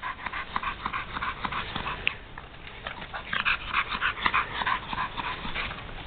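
A pit bull panting hard, quick breathy puffs several times a second, while it runs and jumps at a tree limb.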